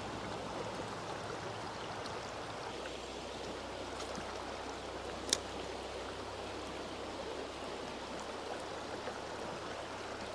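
Creek water flowing over shallow riffles, a steady rushing. A single sharp click sounds a little past halfway through.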